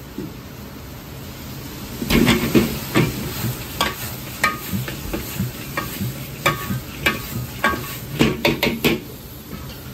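Metal ladle knocking and scraping against a wok as fried chicken drumettes are tossed and sizzle in sauce, a busy run of clanks from about two seconds in until near the end, over the steady rush of the gas wok burner.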